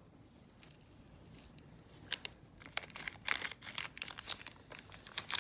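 Plastic packaging crinkling as it is handled, in irregular bursts of rustles that start about two seconds in and come more thickly toward the end.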